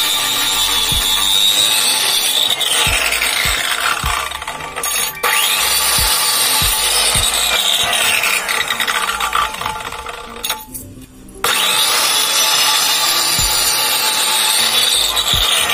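A 1050 W, 13,000 rpm iBELL marble cutter cutting through a brick with its masonry blade, a loud grinding whine whose pitch sags and recovers several times as the blade bites. The sound drops out briefly about eleven seconds in, then resumes.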